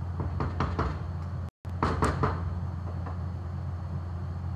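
A metal kitchen utensil knocking and clinking against metal cookware in a few quick clusters, over a steady low hum.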